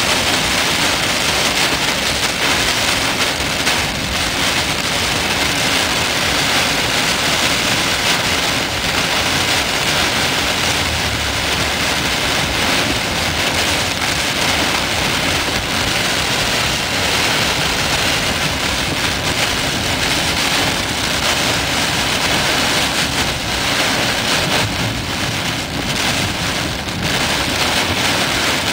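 Heavy rain hitting a car's windshield and roof, heard from inside the car: a loud, steady hiss.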